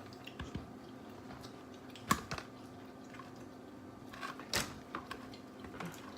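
Scattered clicks and taps of eating seafood at a table, the loudest about two seconds in and another about four and a half seconds in, over a faint low steady hum.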